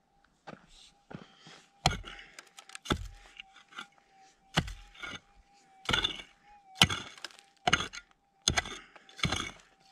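A prospecting pick striking and digging into stony, gravelly ground about eight times, roughly once a second, each blow followed by loose stones rattling and scraping.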